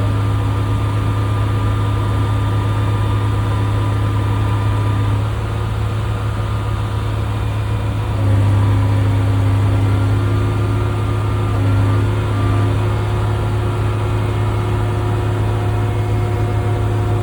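Engine of heavy construction equipment running steadily, with a deep hum and a few steady tones above it; it grows louder about eight seconds in, as if under more load or higher revs.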